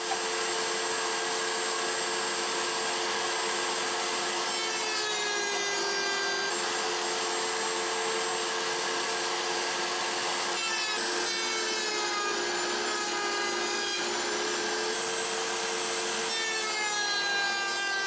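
Router in a router table running a small drawer lock bit, a steady high whine, cutting half-inch drawer sides held upright against the fence. Its pitch sags a few times as a board is pushed through and the cut loads the motor.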